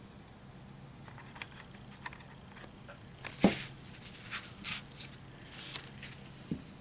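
Small hand tools and model parts being handled on a workbench: scattered light clicks and brief rustles, with one sharper knock about halfway through.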